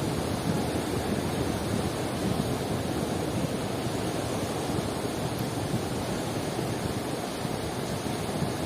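Sea surf washing onto the shore as a steady, even rush, with no single wave breaking out above the rest.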